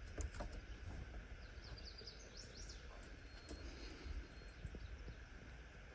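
Quiet outdoor background with faint birdsong: short high chirps in a few quick runs, plus a few faint ticks.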